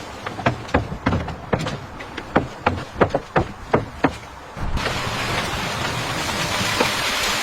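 Irregular sharp knocks and taps of construction work, about three a second. About four and a half seconds in, they cut suddenly to a steady rushing noise.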